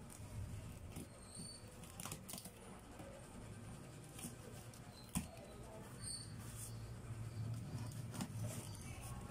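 Utility knife slitting packing tape on a cardboard box: faint scratching and scraping with a few sharp clicks and taps as the blade and hands work the flaps, over a low steady hum.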